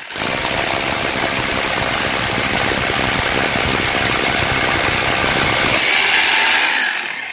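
Rotary hammer drill in hammer mode, a masonry bit hammering and boring into a brick wall: a loud, continuous rattling drone that changes about six seconds in and winds down at the end.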